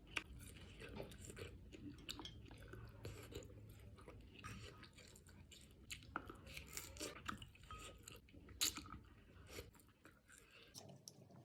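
A person chewing and biting fish balls close to the microphone, with faint wet mouth clicks and soft crunches scattered irregularly.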